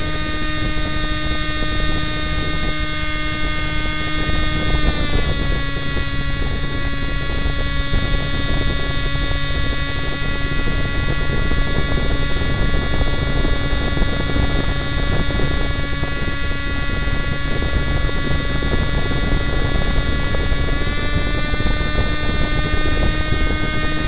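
Powered paraglider trike's engine and propeller droning steadily in flight. The pitch drops slightly about five seconds in, then rises again a few seconds before the end and falls back, as the throttle is eased and opened.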